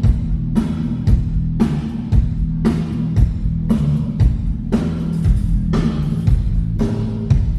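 Rock band playing at a sound check: drums strike a steady beat about twice a second over sustained low bass notes.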